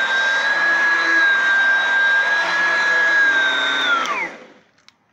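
Oreck XL2 Ultra upright vacuum cleaner's motor running with a steady high whine. It is switched off about four seconds in and winds down with falling pitch, followed by a couple of faint clicks. By the owner's account the bearings seem to need oiling.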